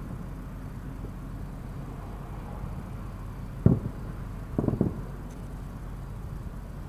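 Aerial firework shells bursting: one loud bang, then about a second later two or three quick bangs, over a steady low rumble.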